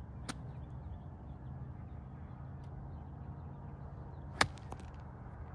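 A golf club striking a ball: one sharp crack about four seconds in, over steady low outdoor background noise, with a faint click near the start.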